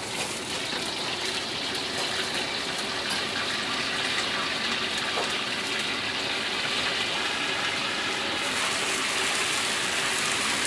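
Live mantis shrimp deep-frying in a wok of hot oil: a steady sizzle with faint crackling that starts as they go in. It grows slowly louder and turns sharper about eight seconds in, as the wok's lid is lifted.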